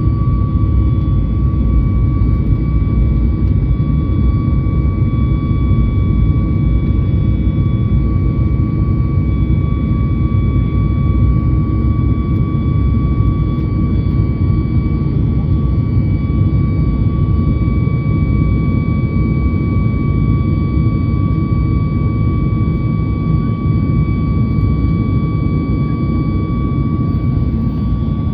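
CFM LEAP-1B turbofan engines of a Boeing 737 MAX running steadily: a deep, even rumble with a steady high whine on top.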